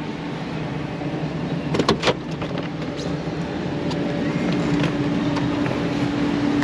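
Vehicle engine running with a steady, constant hum, with a few sharp clicks about two seconds in.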